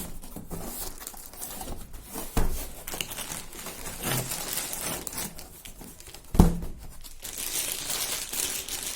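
Laptop box packaging being handled: plastic and paper crinkling and rustling, with two dull knocks, the louder about six seconds in, and denser crinkling near the end.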